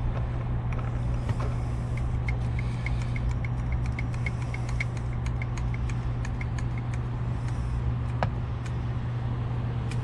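Steady low hum of an idling vehicle engine. Over it, a run of light, regular clicks, about three a second, comes from the hydraulic tube expander being worked in the middle of the stretch. A single sharp knock follows about eight seconds in.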